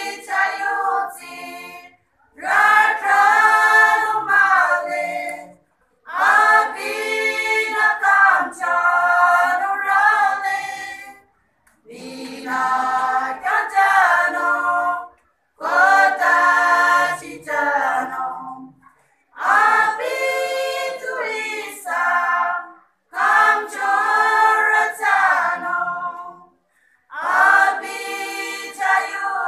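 A group of women singing together a cappella, in phrases of a few seconds separated by short breaks for breath.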